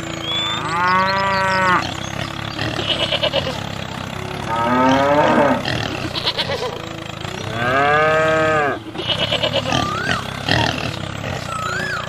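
Cow mooing: two long moos, about a second each, one near the start and one about two-thirds of the way through. Between them comes a shorter wavering animal call, with brief chirps scattered through and a steady hum underneath.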